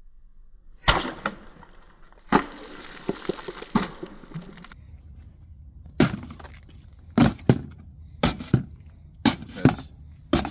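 Sharp sword strikes on a plastic water bottle: a crack about a second in, then a second hit followed by a couple of seconds of noisy spatter. From about halfway on come sharp knocks, roughly one a second, some in quick pairs.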